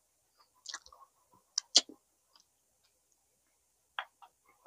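Close-miked eating of barbecued pork baby back ribs: scattered wet chewing and lip-smacking clicks, with the loudest smack a little under two seconds in.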